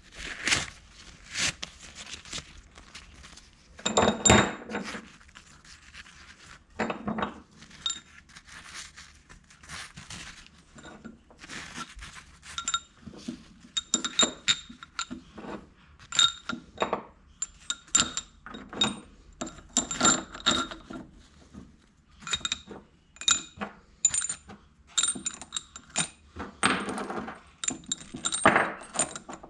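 Metal tools and engine parts clinking and clattering against each other: many irregular sharp metallic clicks, each ringing briefly, with a few louder clatters scattered among them.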